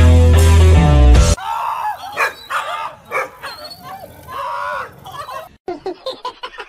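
Rock music that cuts off about a second and a half in, followed by dogs barking, a string of separate short barks. A few short taps come near the end.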